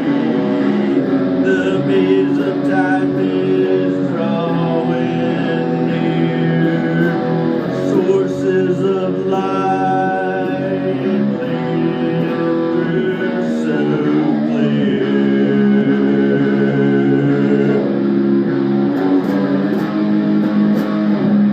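Music: a song's instrumental passage led by guitar, with bass underneath, playing steadily.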